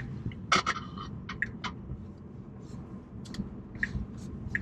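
Low steady road rumble inside the cabin of a Tesla Model 3 moving off slowly, with scattered light clicks and ticks.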